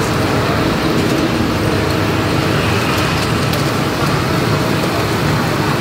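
Steady low rumble with a hiss over it, unbroken and even, with a few faint ticks about three seconds in.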